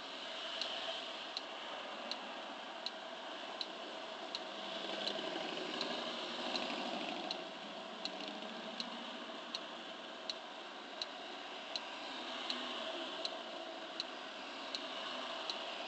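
Honda scooter's turn-signal flasher ticking evenly, about one and a half ticks a second, over a steady background hum.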